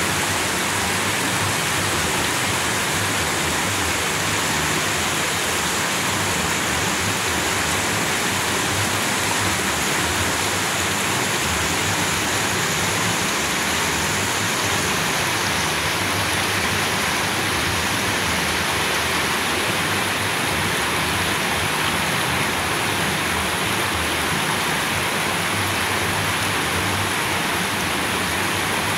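Shallow stream water spilling over a low rock ledge and rippling through a rocky channel: a steady, unbroken rush of splashing water.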